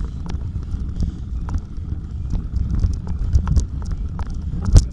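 Bicycle jolting over a rough off-road trail: irregular clicks and rattles, with a sharper knock near the end, over a heavy low rumble.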